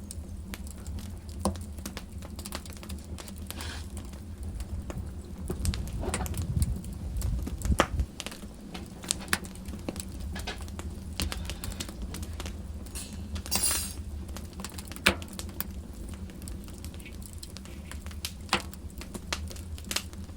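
Wood fire in a fireplace crackling and popping: irregular sharp snaps over a low steady rumble, with a few louder pops and a brief hiss about two-thirds of the way through.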